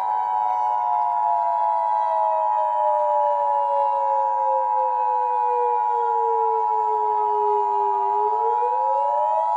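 Emergency Alert System attention signal, a steady two-note tone, sounding over a wailing siren that slides slowly down in pitch for about eight seconds and then starts to climb again near the end. The steady tone cuts off abruptly just as the siren rises.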